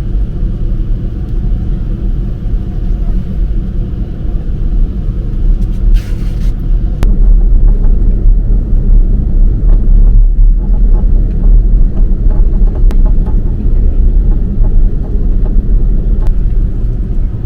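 Steady low rumble of an Airbus A330-300 heard from inside the cabin on the ground with its engines running. It grows louder about seven seconds in as the aircraft taxis.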